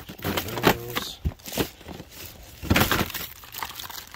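Hands rummaging through a box of packaged goods: plastic bag wrap crinkling and cardboard packaging rubbing and knocking, in several separate rustles, the loudest about three seconds in.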